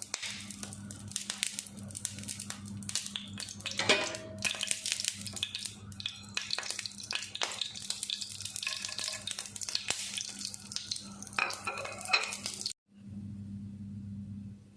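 Food sizzling and crackling in a hot frying pan, with scattered clicks and scrapes of a utensil stirring. It cuts off suddenly near the end, leaving only a steady low hum.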